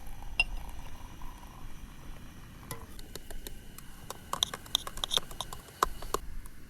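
Clinks and taps of camp utensils against a pot or cup: a single click early, then a rapid run of light, ringing clinks that thins out near the end.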